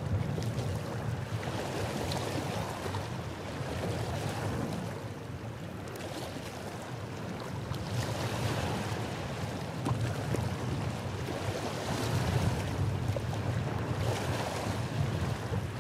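Small lake waves lapping and washing against a rocky shore, swelling and easing every few seconds, with wind buffeting the microphone as a low rumble.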